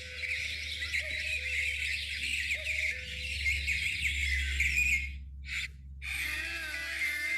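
Huawei phone ringtones. A dense, high chirping texture plays over a soft, repeating lower tone and stops about five seconds in. After a short chirp, a different melodic ringtone begins about six seconds in.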